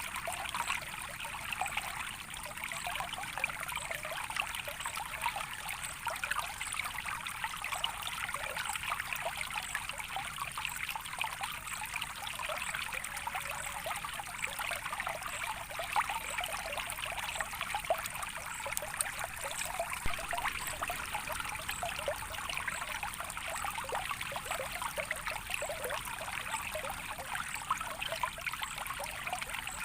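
Small stream of water trickling and babbling steadily, a continuous busy splashing with no pauses.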